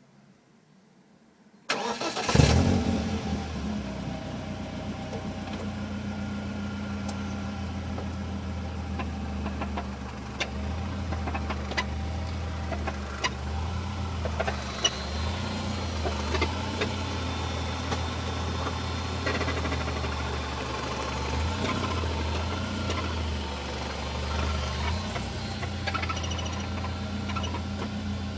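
A 2000 BMW 318Ci's four-cylinder engine starts about two seconds in, then idles steadily. Irregular rattling clicks sound over the idle: the rattle the car is being shown for.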